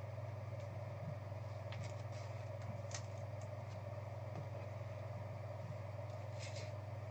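Steady low hum with a few faint clicks of plastic as a magnetic card holder is handled, one near the middle and one near the end.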